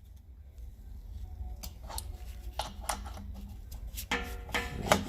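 Wrench turning a threaded fitting into an air compressor: scattered light metallic clicks and clinks, several a second at times, as the fitting is snugged up, over a steady low hum.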